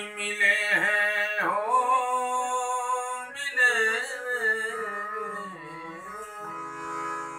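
A man sings long, sliding vocal phrases over a harmonium that holds steady reed chords underneath. About six and a half seconds in, the voice stops and the harmonium sustains alone.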